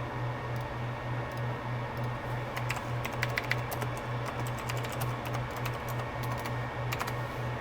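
Computer keyboard typing in short flurries, a busy run of keystrokes about two and a half to three and a half seconds in and a few more near the end. Under the keystrokes runs a steady low pulsing hum.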